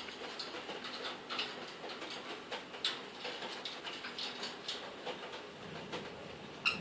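Lovebird's beak tearing and snipping paper into strips, an irregular run of small crackles and ticks.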